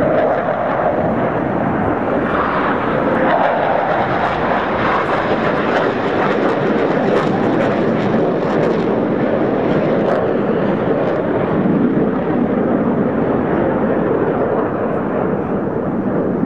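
Jet noise from Blue Angels Boeing F/A-18 Hornets flying overhead in formation: a steady, loud roar of their twin turbofan engines, easing slightly near the end.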